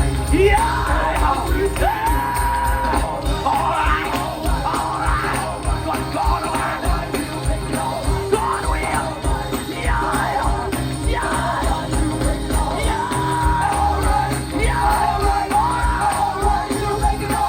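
Live gospel music: a band playing over a steady low beat while a singer holds long notes.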